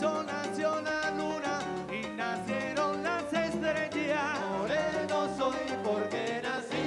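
Live Latin rumba music: a band with bass and percussion plays under a male voice singing a wavering, ornamented melody.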